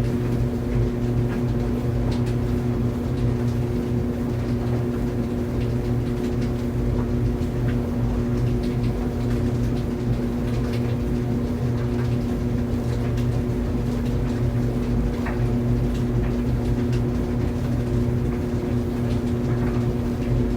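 Laundry dryer running: a steady motor and drum hum with faint, scattered ticks.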